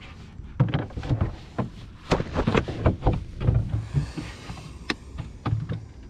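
Irregular knocks and clatter of hands and tackle against a fishing kayak's hull, a dozen or so sharp hits over about five seconds.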